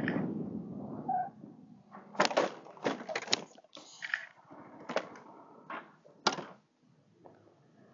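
A crash off a road bend into roadside grass: road noise fades, then a rapid string of sharp knocks and clattering impacts follows between about two and six seconds in, the last one near the end.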